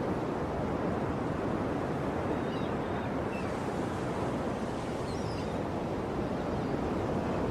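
Ocean surf washing steadily. A few faint high chirps come through in the middle.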